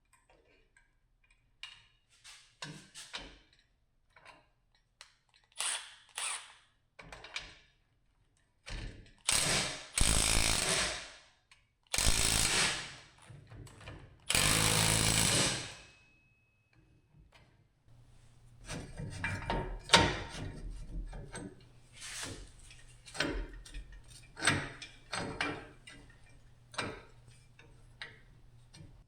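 Tools at work on a boat trailer winch: scattered metal knocks and clicks, with three runs of a power tool lasting a second or so each about a third of the way in, then more clanking and ratcheting.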